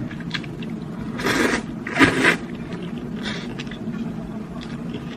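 Noodles being slurped from a bowl of hot and sour soup: two hissing slurps a little after a second in, the second the louder, then a fainter third about a second later.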